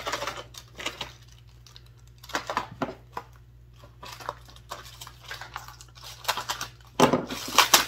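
Packaging handled and torn open by hand: crinkling and tearing with scattered light clicks and knocks. A denser, louder burst of rustling comes near the end.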